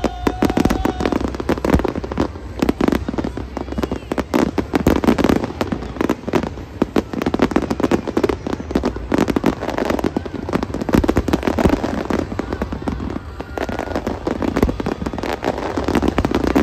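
Aerial fireworks display: a dense barrage of shells bursting, rapid bangs and crackles following one another without pause.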